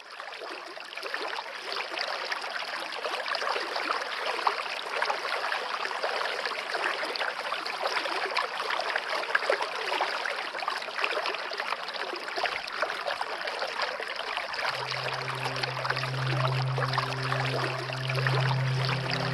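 Steady rush of running water, like a trickling stream. About fifteen seconds in, a low held musical tone joins it.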